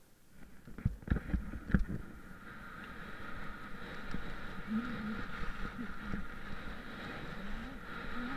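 Skis sliding and scraping over hard-packed snow on a downhill run, a steady rushing hiss that builds up after a few heavy thumps about a second in, with wind noise on the microphone.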